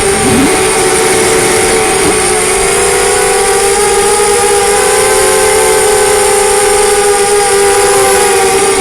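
HeliPal Storm SRD250 Pro racing quadcopter's brushless motors and Gemfan 5045 bullnose propellers whining steadily in flight, the pitch drifting slightly up and down over a steady hiss.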